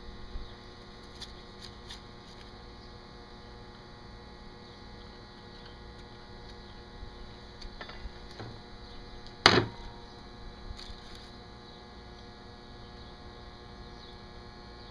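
Small clicks and taps of hand tools being handled on a wooden table, with one sharp knock about halfway through, over a steady hum.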